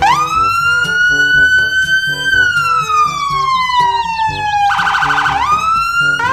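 Police car siren wailing: one slow rise and fall in pitch, broken by a short rapid yelp about five seconds in, then rising again near the end.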